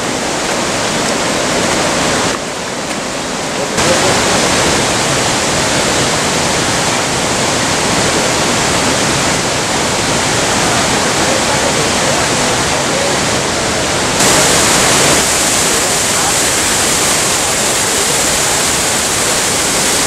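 Steady loud rush of falling and running water from a waterfall and its river. It drops briefly about two seconds in, and turns brighter and louder about fourteen seconds in.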